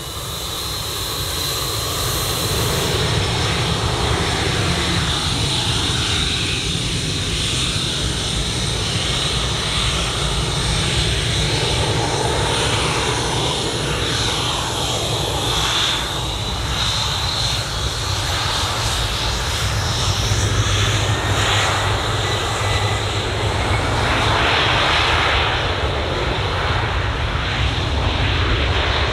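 Gulfstream IV business jet's twin turbofan engines running at taxi power: a steady roar with a high-pitched whine.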